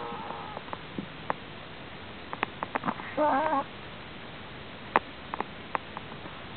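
Prairie dog snoring in its sleep: a short wavering squeak at the start and a longer warbling snore about three seconds in, with scattered small clicks between. A strange snore that the owner says is not caused by an odontoma.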